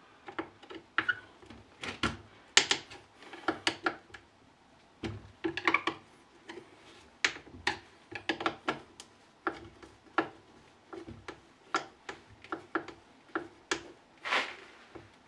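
Irregular clicks, clinks and knocks of hand tools and small metal parts being handled while a concrete vibrator is worked on, with one longer scrape near the end.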